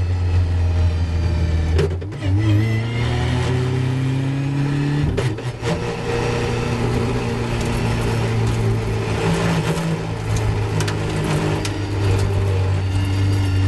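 Caterham 420R race car's four-cylinder engine heard onboard, pulling hard through slow corners: its note rises under acceleration, with two brief breaks about two and five seconds in, then runs steadier. Wind rushes over the open cockpit.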